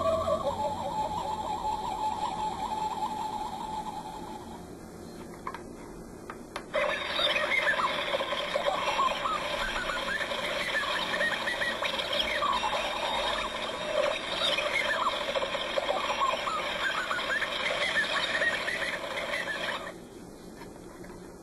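Star Trek original-series tricorder sound effects from the sound module fitted in a replica tricorder prop. A rapidly pulsing electronic tone fades out over the first few seconds. About seven seconds in, a busy scanning warble of quick rising and falling chirps over steady tones starts and runs until it cuts off sharply near the end.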